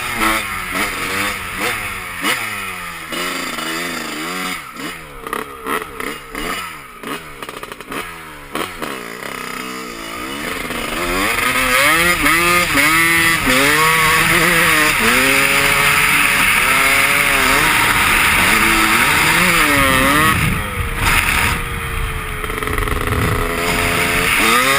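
Dirt bike engine revving up and down again and again as it is ridden, its pitch rising and falling every second or so. It grows louder about ten seconds in and stays loud, easing briefly near twenty seconds.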